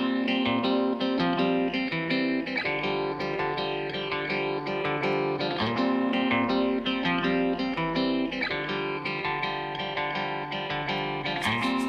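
Background music played on guitar, with plucked and strummed notes in a steady rhythm.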